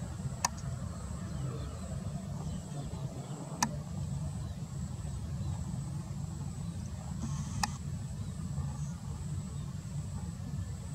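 Distant jet airliner engines running at low thrust as the plane taxis: a steady low rumble, with three sharp clicks at intervals of about three to four seconds.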